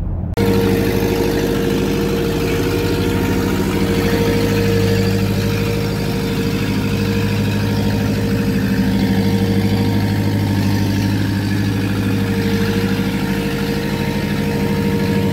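Gehl skid loader's diesel engine running steadily at a constant speed while it carries a heavy tractor tyre.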